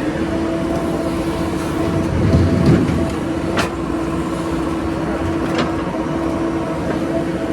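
Diesel engine of a JCB backhoe loader running steadily with a constant whine, swelling briefly about two seconds in as it takes load, with two sharp metallic clanks about a second and three seconds later.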